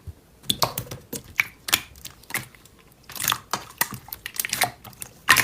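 Slime being pressed and squished by hand, making a quick, irregular run of sharp clicks and crackles.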